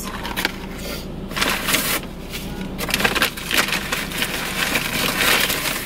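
Brown paper fast-food bag rustling and crinkling as hands dig through it, an irregular run of crackles.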